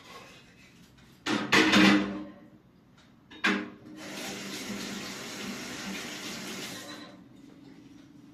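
Two loud sudden clattering sounds, then a kitchen tap running steadily for about three seconds before it is shut off.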